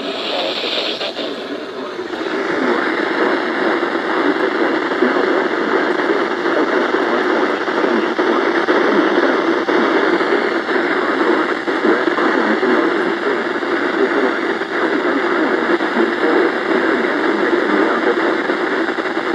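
Steady static hiss from a NOAA weather radio receiver, setting in about two seconds in. The receiver is picking up no clear broadcast.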